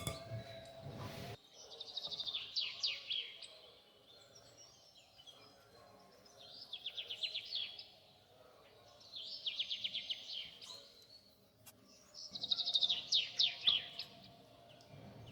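A songbird singing four short, fast trilled phrases a few seconds apart, each sliding downward in pitch.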